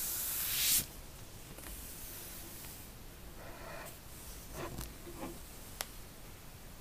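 A loud hiss swells and cuts off abruptly within the first second. Then come soft sliding and handling sounds of two smartphones on a desk, with a few light knocks and one sharp tick near the end.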